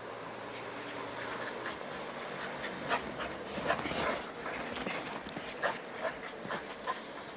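A dog making a run of short, irregular vocal sounds while playing in snow, starting about three seconds in and lasting to near the end, over a steady background hiss.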